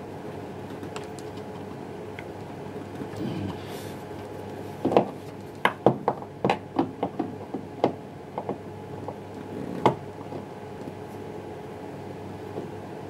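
A run of about a dozen sharp knocks and clicks over some five seconds, from a washing machine drum's shock absorber being worked out of its plastic bottom mounting by squeezing its locking lug and knocking it out from behind. A low steady hum sits under it throughout.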